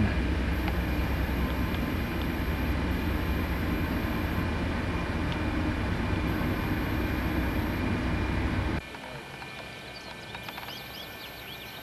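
BNSF diesel freight locomotive passing close by, its engine a steady low rumble. The sound cuts off abruptly about nine seconds in, leaving a much quieter background with faint high chirps.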